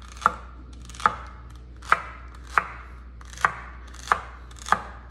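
Kitchen knife slicing a celery stalk on a wooden cutting board: seven sharp, even chops, one about every three-quarters of a second.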